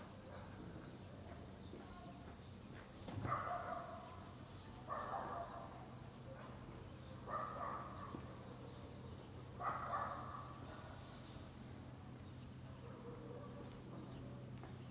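Outdoor ambience of small birds chirping over and over, with four louder animal calls about two seconds apart in the first part, all over a steady low hum.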